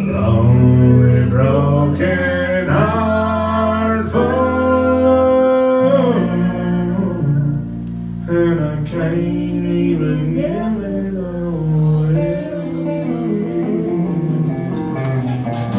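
Live country band playing: a man sings lead over strummed acoustic guitar, electric guitar and bass, holding some long notes.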